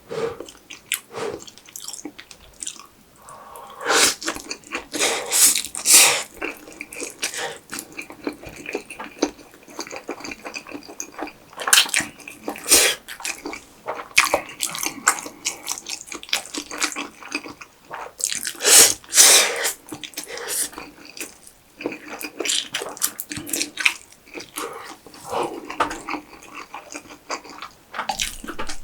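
Close-miked eating sounds: wet chewing with many sharp, clicky mouth noises, coming in louder clusters every few seconds.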